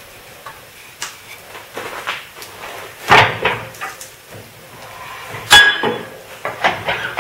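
Bowl gouge cutting into a spinning ash bowl blank on a wood lathe, giving irregular knocks and scraping. The loudest hits come about three seconds and five and a half seconds in.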